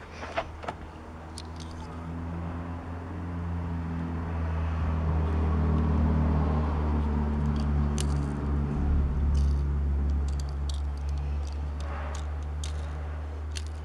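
A low engine drone over a steady hum swells for several seconds, peaks midway and fades, in the way of a motor vehicle going by. A couple of sharp clicks come about half a second in, with scattered light ticks later.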